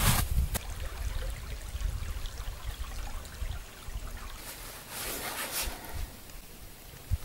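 Spring river water flowing in a steady trickling rush. A short knock at the very start.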